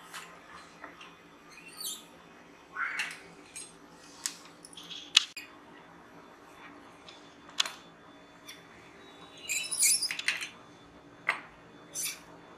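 Fluted pastry wheel cutter rolling through stiff dough on a wooden rolling board, giving scattered clicks and short squeaks, with a busier run of squeaks about ten seconds in.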